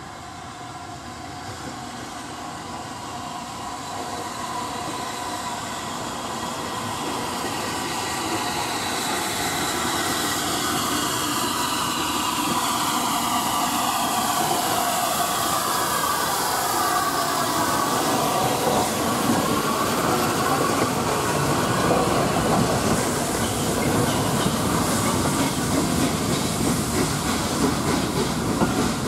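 LNER A3-class 4-6-2 'Flying Scotsman', a three-cylinder Gresley steam locomotive, approaching and running through the station, growing steadily louder. It passes with a set of falling tones, and then its train of carriages rolls by with wheels clicking over the rail joints.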